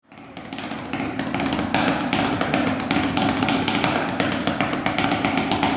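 Drumsticks striking a hard pad on a table in a fast, steady run of strokes, a drummer's warm-up; the sound swells in over the first second or so.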